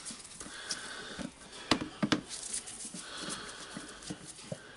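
10 mm steel Allen key turning out the oil cap of a Hilti TE56 hammer drill: quiet scraping and light metal clicks, with two sharper clicks about two seconds in.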